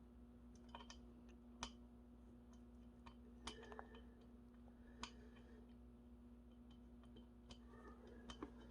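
Near silence with a faint steady hum and a few faint, scattered clicks and taps.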